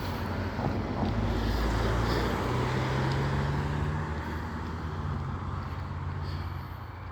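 A motor vehicle going past on the road: a low engine hum and road noise that swell about a second in, then fade away toward the end.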